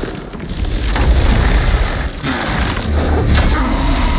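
Sound effects of a man turning into a leshen, a tree creature: a deep, booming rumble of moving wood and roots, broken by sharp cracks about a second, two seconds and three seconds in.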